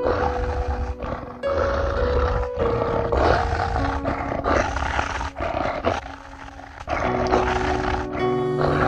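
Dramatic soundtrack music: held notes that shift every second or so over a deep, pulsing rumble in the bass, briefly quieter about six seconds in.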